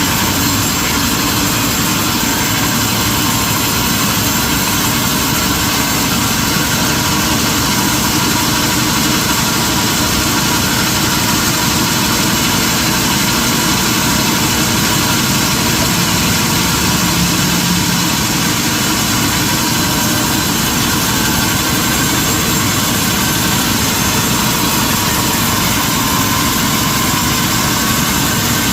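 Sawmill machinery running steadily: a loud, even mechanical noise that holds unchanged throughout, with no separate cuts or knocks.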